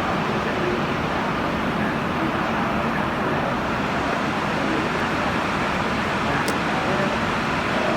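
Steady road and traffic noise from a car in heavy rain on a wet road: an even, unbroken hiss.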